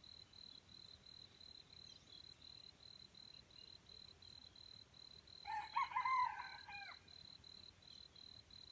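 A rooster crows once, a single call of about a second and a half a little past the middle. A faint, steadily pulsing insect call runs underneath throughout.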